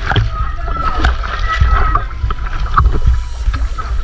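Pool water sloshing and splashing around a waterproof camera, with a heavy, uneven low rumble of water moving over the microphone.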